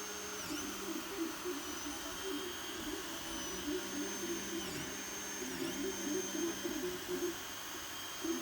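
3D printer running a print: its stepper motors whirr and whine as the print head moves, the high whine dipping briefly in pitch every second or two as moves change speed or direction.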